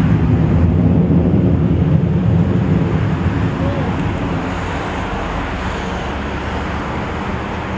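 Jet aircraft flying high overhead: a steady low roar, loudest over the first few seconds and then slowly fading.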